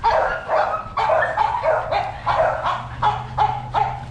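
American Bully puppies barking and yipping in play, short high-pitched yaps about two or three a second.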